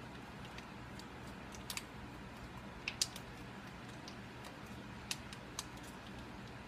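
A few short, sharp clicks and taps from hands working at a kitchen counter during food preparation, the loudest a quick pair about three seconds in, over a steady low hum.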